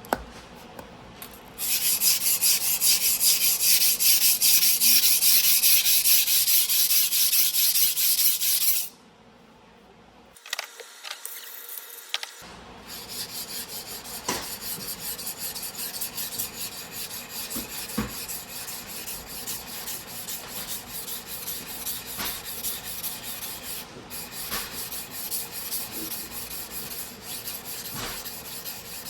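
A 270 mm single-bevel sujihiki blade being ground back and forth on a whetstone in rapid strokes with a gritty scraping hiss. It is loud for about seven seconds, stops for a few seconds, then resumes more quietly.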